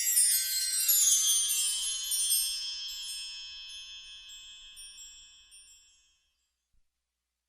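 Magic sparkle sound effect: a shimmering cascade of many high, chime-like tones, the lowest of them sliding down in pitch, fading away over about six seconds.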